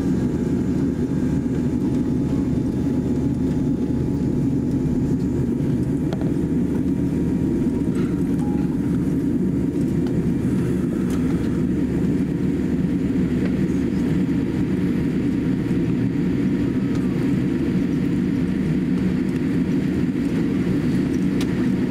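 Steady low rumble inside the cabin of a Boeing 787-8 airliner as it taxis.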